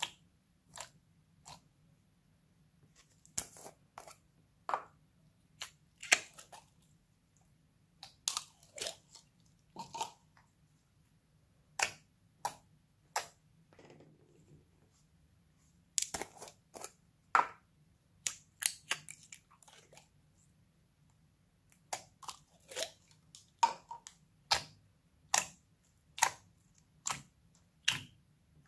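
Glossy slime being pressed and poked by fingers in a glass dish: irregular sharp, sticky clicks and pops with short quiet gaps between them, and a pause of a couple of seconds near the middle.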